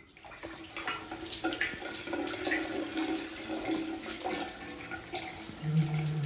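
Water running steadily from a tap, with small splashes and drips over the running stream.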